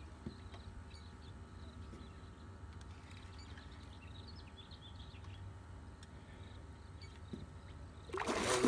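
Quiet open-air ambience on the river: a steady low rumble with faint, scattered high chirps. Near the end comes a sudden loud noise, followed by a person's voice.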